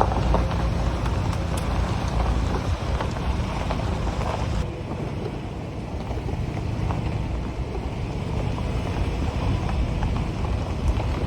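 Tyres rolling over a dirt and gravel road, with a steady low engine and road rumble and small ticks of stones under the tyres. About halfway through, the higher hiss drops away abruptly and the low rumble carries on.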